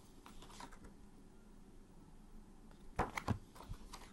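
Paper flashcards being handled: faint rustles early on, then a quick cluster of soft clicks and taps about three seconds in.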